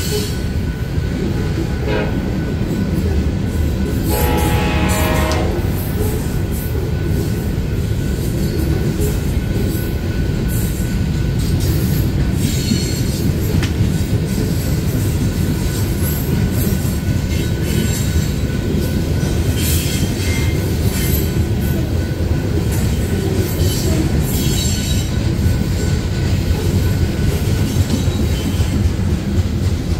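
Loaded coal hopper cars rolling past a grade crossing: a steady heavy rumble of steel wheels on rail with clicking over the joints. A short pitched wheel squeal comes about four seconds in, and faint high squeaks are heard now and then.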